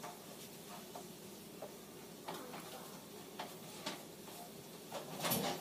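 Scattered light knocks, clicks and rustling of packages as things are moved on pantry shelves and a bag of flour is taken down, with a louder rustle and clatter about five seconds in.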